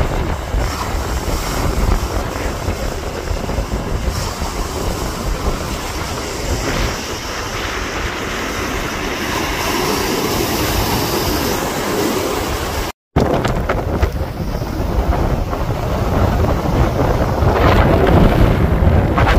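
Storm wind buffeting the microphone: a heavy low rumble under a steady rushing noise, which cuts out for a moment about two-thirds of the way through.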